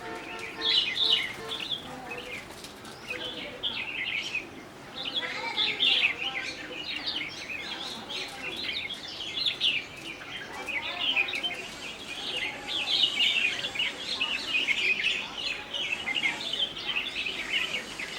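A flock of sparrows chirping busily, many short overlapping chirps in rapid clusters with brief lulls between them.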